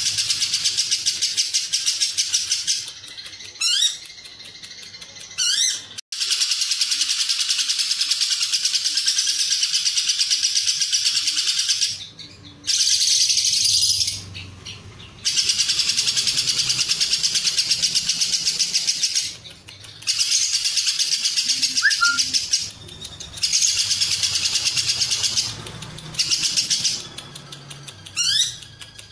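Lovebird singing 'ngekek': long bouts of rapid, unbroken chattering trill lasting several seconds each, separated by short pauses, with a few brief rising whistled notes among them.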